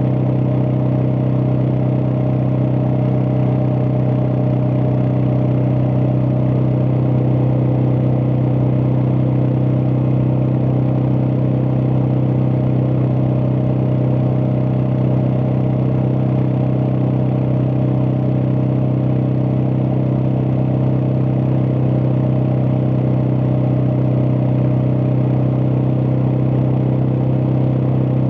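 Suzuki DR650's single-cylinder four-stroke engine running steadily at an even, unchanging pitch.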